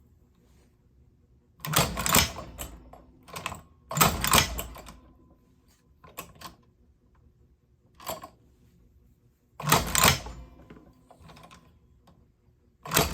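Cowboy Outlaw hand-crank leather sewing machine stitching thin leather. Each pull of the crank drives the needle through with a loud mechanical clatter, about six strokes a second or more apart, unevenly spaced.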